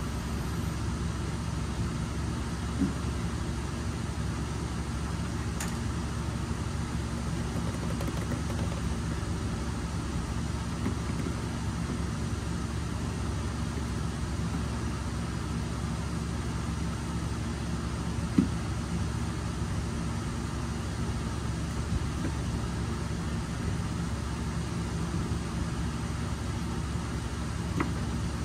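A steady low mechanical hum, with a few faint clicks now and then.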